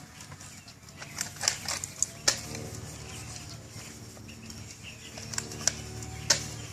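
A handful of sharp clicks and knocks at irregular intervals, in two clusters, over a low steady background hum.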